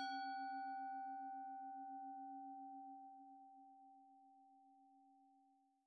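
A singing bowl, struck once, rings and slowly fades away over about six seconds. Its low tone wavers in a steady pulse under a clearer higher tone, while the brighter overtones die away within the first second or two.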